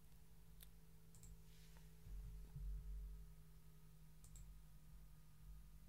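Near silence with a few faint computer mouse clicks: one about half a second in, one just over a second in, and a quick pair just after four seconds. A low, steady hum runs underneath.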